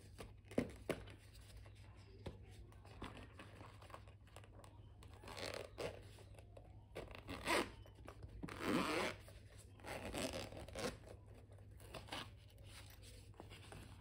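The zipper of a moulded hard-shell pencil case being unzipped in several short rasping pulls between about five and eleven seconds in, with a few soft clicks from handling the case before them.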